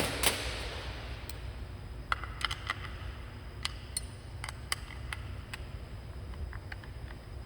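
Metal parts knocking and clicking as a valve positioner is handled and fitted back onto its actuator mount. A sharp clank right at the start rings on briefly, then scattered light clicks and taps follow over a steady low hum.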